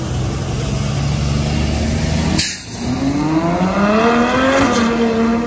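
A low engine rumble from passing traffic, cut off abruptly about two seconds in. It is followed by a sports car's engine accelerating hard, its pitch climbing for about two seconds, then a brief dip as at a gear change before it holds a high steady note.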